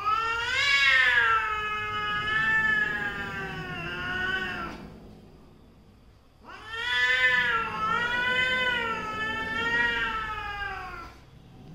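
A cat yowling at another cat in a hostile standoff: two long, wavering yowls of about five seconds each, with a short pause between.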